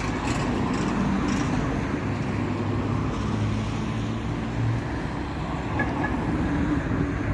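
Road traffic noise with a vehicle engine's steady low hum.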